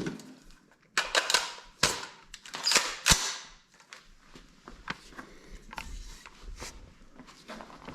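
Gunshots at an indoor shooting range: a few sharp cracks in the first three seconds, the strongest about a second in and near three seconds, then fainter clicks and knocks.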